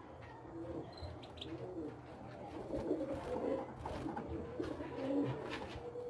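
Pigeons cooing repeatedly in low, rolling phrases, with short splashes from small finches bathing in a water dish.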